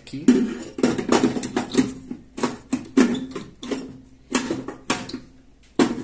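Irregular metallic clanks and scrapes, a dozen or so, as a replacement Galanz magnetron's steel housing is worked into place against the microwave oven's sheet-metal chassis, each knock ringing briefly.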